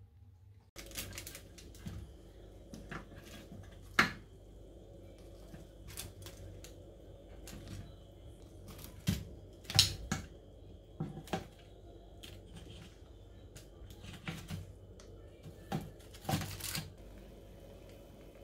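Irregular clicks and knocks of a metal oven tray and wire rack being handled, with sharper knocks about 4 s in, near 10 s and near 16 s.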